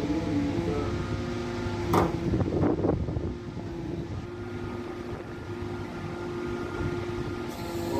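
Hydraulic static pile driver's power unit running with a steady hum, with a sharp clank about two seconds in followed by a brief rough rattle.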